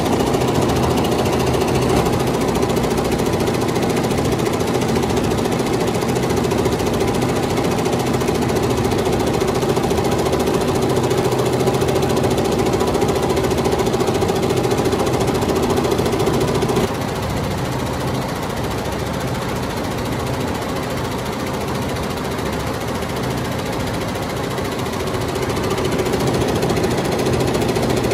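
Computerized embroidery machine with a cording attachment stitching at speed: a steady, rapid needle clatter. It turns a little quieter past the middle and picks up again near the end.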